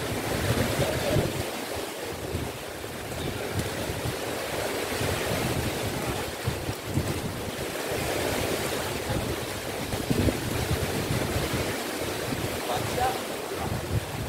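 Sea waves washing ashore, with gusts of wind buffeting the microphone.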